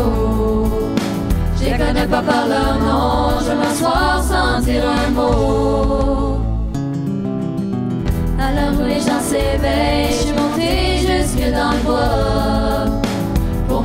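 A live pop-folk band with a group of young voices singing together in harmony, backed by electric bass, acoustic guitar, drums and keyboard. A little past the middle the drums and voices drop out for about a second and a half, leaving held chords, then everything comes back in.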